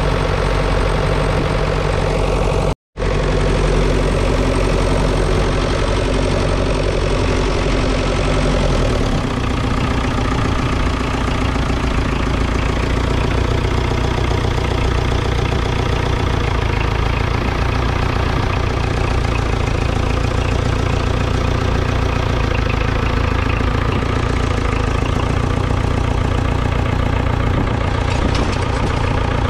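1959 Ferguson FE35 tractor's 2.3-litre four-cylinder diesel engine running steadily close by. The sound cuts out briefly about three seconds in, and the engine note changes about nine seconds in.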